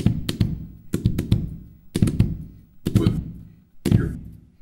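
A rubber bouncy ball striking a hard surface in a steady rhythm, about once a second. Each strike is a low thud followed by a few quick smaller clicks.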